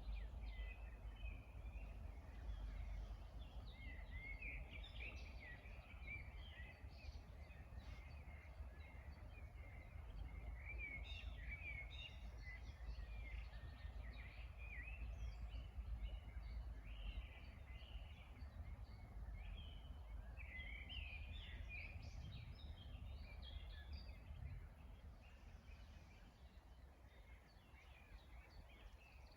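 Several wild songbirds singing and chirping in quick short phrases, over a steady low background rumble; the song grows a little sparser and quieter near the end.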